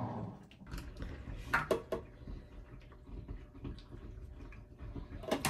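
Skincare handling sounds: hands rubbing and a plastic lotion bottle being handled and poured, with a few sharp clicks and taps, the loudest a pair about a second and a half in and one near the end.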